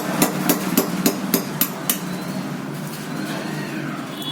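Rapid hammer strikes on a ceiling fan's stator, cutting away the burnt copper winding, about three to four blows a second, stopping about two seconds in.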